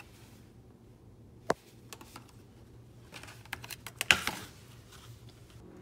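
Thin plastic clamshell strawberry container being handled and its lid pulled open. There is a single sharp click about a second and a half in, then a cluster of crackling plastic clicks around four seconds in, the loudest of them as the lid comes free.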